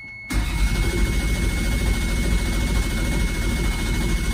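Starter motor cranking a Toyota 2GR-FE V6 that turns over without firing, because its fuel and ignition relays are pulled: a dry crank to build oil pressure before the first start. The cranking begins just after the start and runs at a steady, fast pace.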